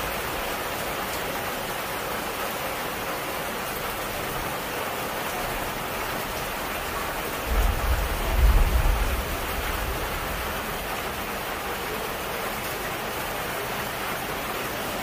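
Steady rain falling, an even hiss with no pauses. A brief low rumble about halfway through is the loudest moment.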